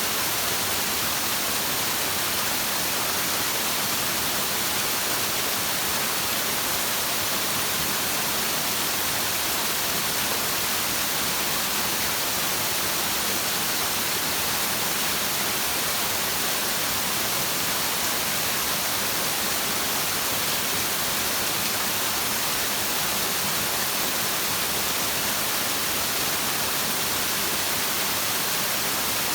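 Continuous, even rushing hiss, brightest in the upper range, with no rise, fall or break.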